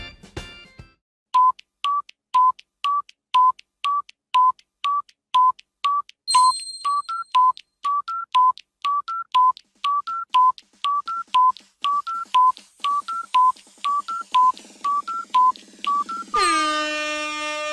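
Countdown timer: short electronic beeps alternating between two close pitches, about two a second. Near the end a loud horn-like blast signals that time is up.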